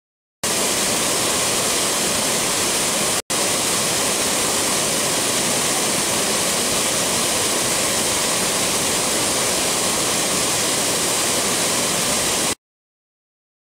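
Waterfall pouring: a steady, loud rush of falling water with no pitch or rhythm, broken by a brief cut about three seconds in and stopping abruptly near the end.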